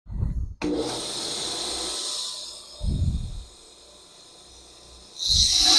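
Power sander grinding the steel of a knife blade cut from an old sawmill blade. The grinding fades out about two and a half seconds in and starts again loudly near the end, with a few dull low bumps in between.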